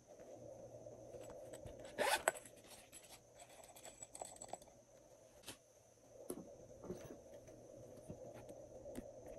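A zipper on a small silicone pouch is pulled open about two seconds in, one short rasp, followed by faint handling clicks and rustles over a faint steady hum.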